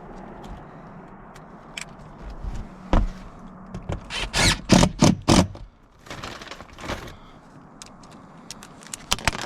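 Work noises on sheet-metal roofing: a sharp knock about three seconds in, then four loud clattering strokes in quick succession around the middle, with scattered small clicks and a faint steady hum.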